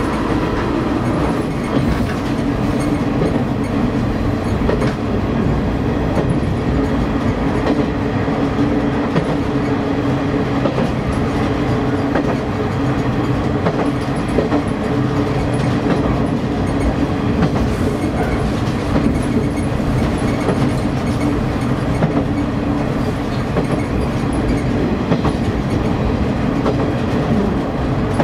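KiHa 31 diesel railcar running along the line: a steady engine drone with the clickety-clack of the wheels over rail joints.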